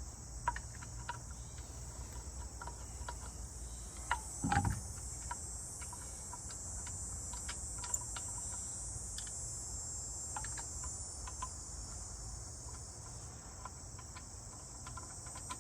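Steady high-pitched chirring of crickets in the background, with scattered light clicks and a short dull thump about four and a half seconds in.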